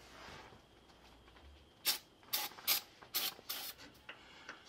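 About five short scrubbing strokes against the cast gasket flange of a Dodge Ram front-axle shift-motor housing, coming in the second half: cleaning old gasket residue and gear oil off the mating surface.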